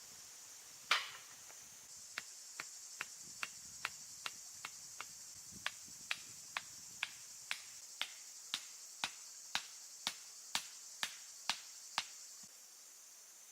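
A single sharp knock, then a long run of evenly spaced sharp taps, about two a second, that stops near the end. Insects, likely crickets, chirr steadily throughout.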